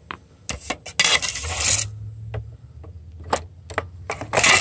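Energizer batteries clinking and scraping as they are pulled out of a boombox's battery compartment and set down on a table: a string of sharp clicks, a longer rattling scrape about a second in, and a few louder clacks near the end.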